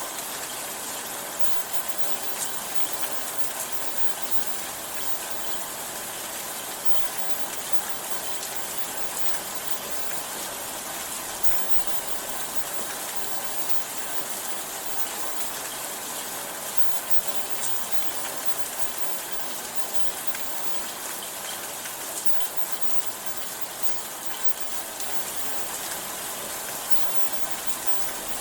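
Steady rain falling, an even hiss with the odd louder drop ticking through it.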